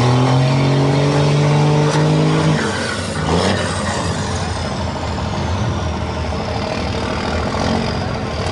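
Diesel Dodge pickup engine held at high revs while the truck is bogged down in sticky mud, then backed off about two and a half seconds in and left running lower.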